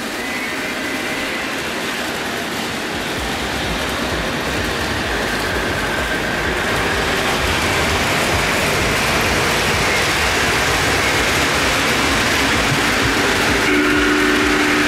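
O-scale model train running on its track, the rumble and rattle of wheels growing steadily louder as it approaches. Near the end a short steady two-note tone sounds, like the locomotive's horn.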